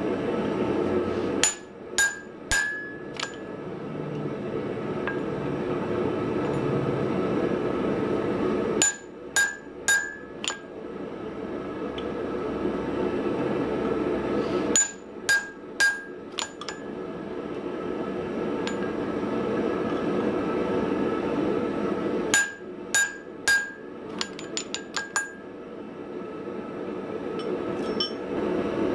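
Hammer blows ringing off the anvil in four quick groups of three to six, driving a slitting punch through the hot steel hammer head for its eye. A steady rushing noise fills the gaps between the groups and drops out while the hammer strikes.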